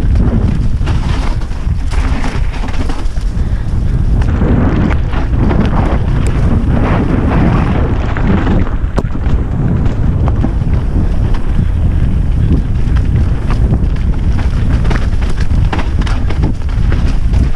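Wind buffeting the microphone of a camera on a Banshee Rune mountain bike as it descends a dirt singletrack at speed, with tyre rumble over dirt and roots and scattered clicks and knocks from the bike.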